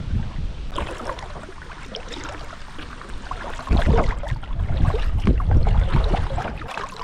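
Kayak paddling: water splashing and dripping from the paddle as it dips into the river. Gusts of wind buffet the microphone with a low rumble, loudest from about halfway through to near the end.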